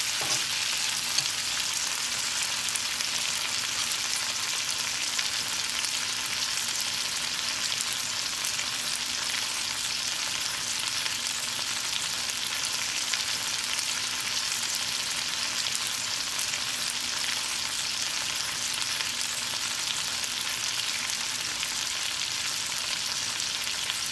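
Chopped tomatoes sizzling and frying in sesame oil in a pan, a steady hiss with a few small ticks. The tomatoes are being sautéed until their juice dries off.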